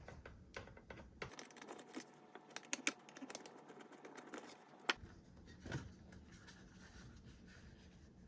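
Faint, irregular small clicks and ticks of a Phillips screwdriver working two screws out of a plastic seat handle.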